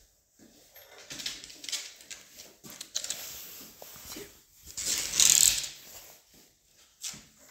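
Rustling and rubbing of a Sheltie's long, thick coat brushing against the phone and hand, in uneven bursts that are loudest a little past five seconds in.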